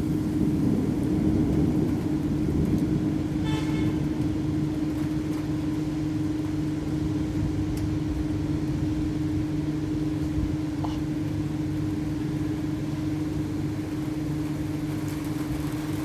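Low rumble of thunder in a heavy thunderstorm, strongest in the first seconds and then rolling on steadily, over a constant low hum. A brief high-pitched toot sounds about three and a half seconds in.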